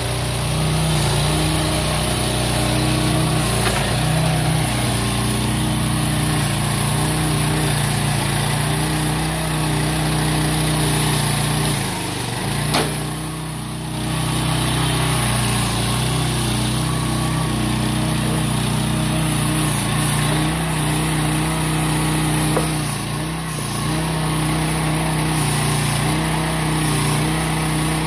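AGROTK H15 mini excavator's engine running steadily while the machine is driven on its tracks and the boom is worked. It dips briefly quieter about twelve seconds in and again about twenty-three seconds in.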